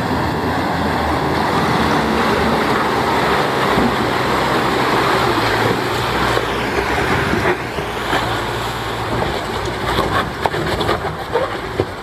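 Holden Colorado ute driving through a river crossing: water rushing and splashing around it over its engine. In the second half it turns rougher, with a run of sharp knocks and splashes as the ute climbs out over rocks.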